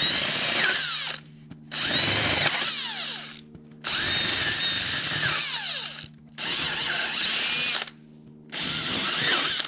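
Power drill spinning a countersink bit into a wooden board in five short bursts of about a second each, with brief pauses between. It is recessing the bolt holes so the bolt heads will sit flush.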